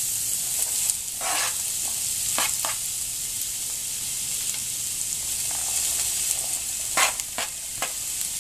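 Chopped bell pepper, jalapeño and onion sizzling steadily in a frying pan of hot olive oil as they are scraped in, with short scrapes and clatters of a knife pushing them off a cutting board, a few about a second in and a quick cluster near the end.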